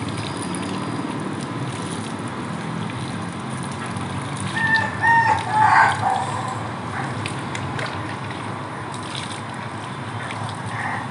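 A rooster crows once, about halfway through: a loud pitched call lasting under two seconds, over a steady background hiss. Water is poured over a dog being bathed.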